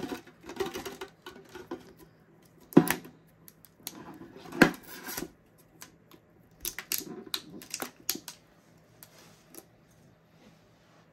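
Hands working at a metal Pokémon card tin, trying to get it open: scattered taps, fingernail scratching and light rustling, with two sharp clicks about three and five seconds in.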